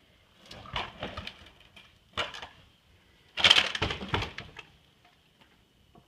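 Footsteps crunching on loose rock ballast and gravel: three slow, uneven steps, the loudest about halfway through.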